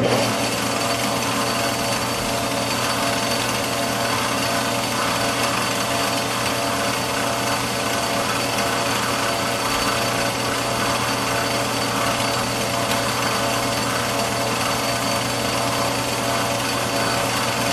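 Metal lathe running steadily while a center drill is fed into the end of a spinning steel part, a constant machine hum with a steady high whine over it.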